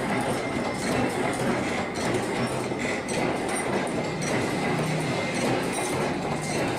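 Automatic wire chain-making machine running, feeding steel wire through its straightening rollers and bending it into links: a fast, continuous metallic clatter with a thin steady high tone over it.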